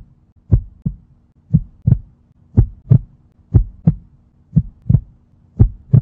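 Heartbeat sound effect: a double thump, lub-dub, about once a second, over a faint steady hum, used as a suspense cue.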